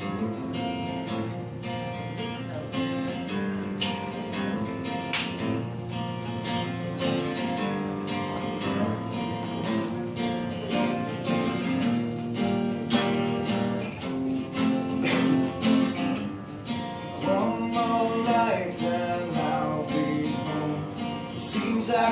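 Acoustic guitar strummed in a steady rhythm: the instrumental opening of a song, before the vocal comes in.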